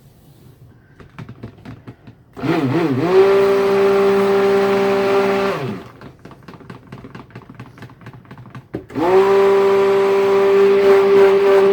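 Stick blender run twice in bursts of about three seconds, mixing soap batter; each time the motor spins up with a wavering pitch, then holds a steady whine. Light clicking between the bursts.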